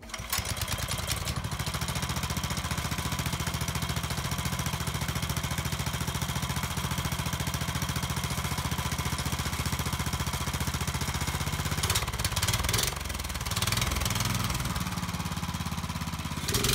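Go kart's small Honda engine starting up and then idling steadily with an even beat, with a couple of brief revs near the end.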